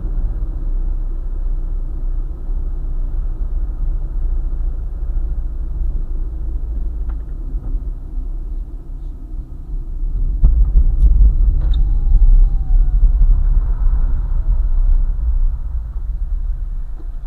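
Car travelling on a highway: a steady low rumble of road and engine noise that grows louder about ten seconds in and eases off again a few seconds later, with a few light clicks.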